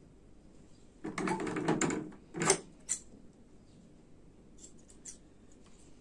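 Handling noise as slingshot materials are worked by hand: about a second of rustling, then a sharp knock and a lighter click.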